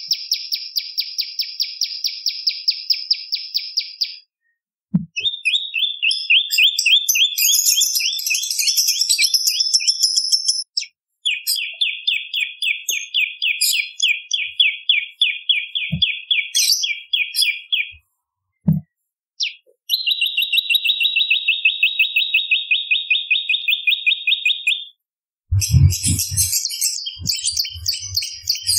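Prenjak lumut, a small prinia-type warbler, giving long runs of fast, evenly repeated high chirps. There are four runs of several seconds each with short pauses between, then a scratchier burst near the end with a few low thumps.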